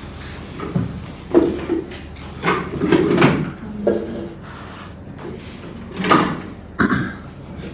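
Wooden beehive box and frames being handled: a series of irregular scrapes and knocks of wood on wood.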